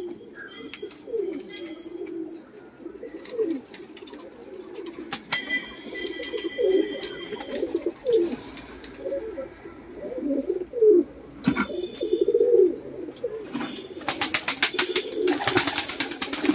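Domestic pigeons cooing over and over, low gliding calls. A burst of rapid clattering comes in near the end.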